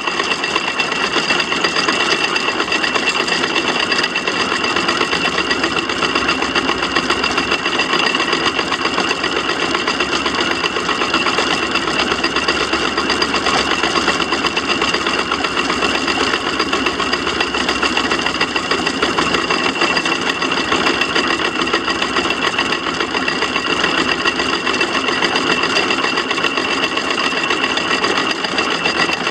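6-inch Samson steam traction engine running steadily along the road, its motion work and gearing giving a rapid, even mechanical clatter.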